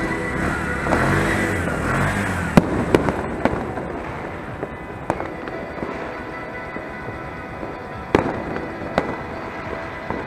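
Firecrackers and fireworks going off: scattered sharp bangs of varying loudness, several in the first half and two more around eight and nine seconds in, over a constant background din.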